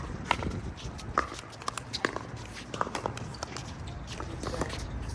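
Pickleball rally: paddles hitting the plastic pickleball, a series of sharp pops about once a second.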